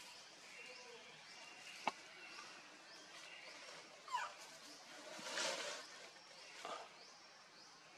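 Faint animal calls: a short squeal falling in pitch about four seconds in, over repeated high chirping, with a sharp click near two seconds and a brief burst of rustling-like noise in the second half.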